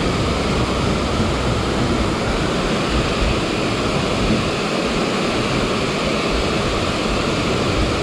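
A waterfall close by: a loud, steady rush of falling water.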